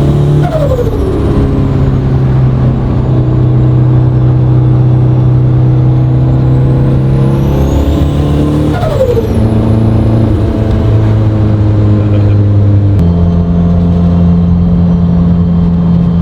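Turbocharged 1.6-litre Mazda Miata four-cylinder running at a steady cruise. A high turbo whine rises and falls twice, each time with a falling whistle, about half a second in and about nine seconds in. The engine note drops about eight seconds in and steps up to a higher steady pitch about thirteen seconds in.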